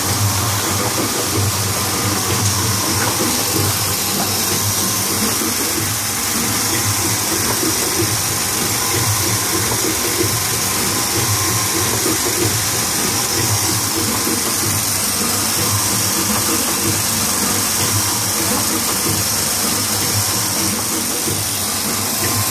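Kluge EHD foil stamping and die-cutting press running: a steady mechanical hum over a strong high hiss, with a low rhythmic pulse as the press cycles.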